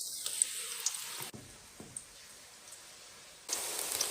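Mutton fat sizzling as it melts in a hot pan, with a few sharp pops; the sizzle falls quieter for a couple of seconds, then a louder, steady sizzle starts about three and a half seconds in.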